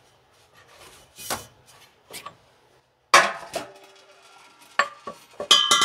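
Wrench and metal driveshaft parts clinking and clanking as the driveshaft's U-bolt straps are undone. There is a loud metallic clank with a brief ring about three seconds in, and a quick run of ringing clinks near the end.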